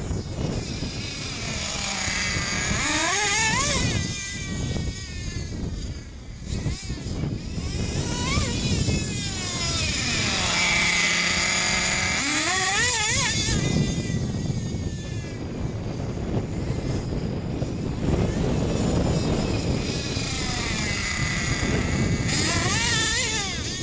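Custom twin-engine XTM XLB radio-controlled buggy running, its small engines revving up and easing off again and again as it is driven. It is stuck in first gear, so the engines rise to high revs without shifting.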